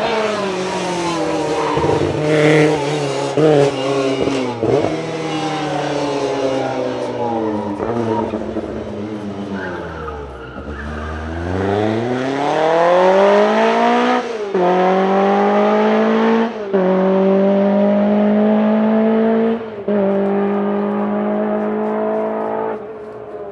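Lancia Rally 037's supercharged 2.0-litre four-cylinder engine driven hard: revs rising and falling through the first half, then a long climb from low revs and three quick upshifts, each a brief dip in the sound, before it fades away near the end.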